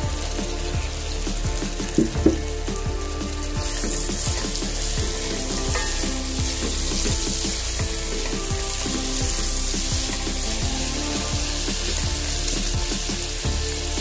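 Sliced onions sizzling as they fry in oil in a nonstick pan, stirred with a spatula; the sizzle grows louder a few seconds in, and two sharp knocks come about two seconds in. Background music plays under it.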